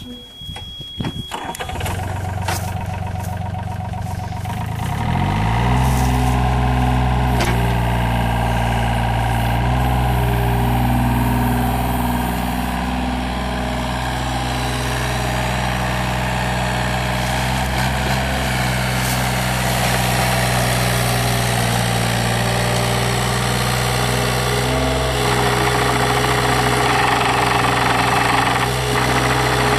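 The three-cylinder Yanmar diesel of a 2005 Yanmar VIO35-3 mini excavator starting from cold: a steady high beep stops about two seconds in as the engine fires, and it picks up speed about five seconds in. It then runs steadily.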